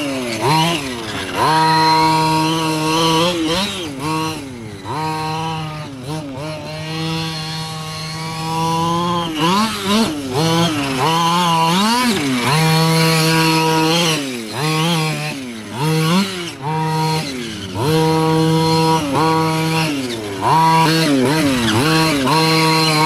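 Losi 5ive-T's 26cc two-stroke gas engine being driven hard: it holds a steady high pitch at full throttle, then drops away and climbs back up every second or two as the throttle is let off and opened again.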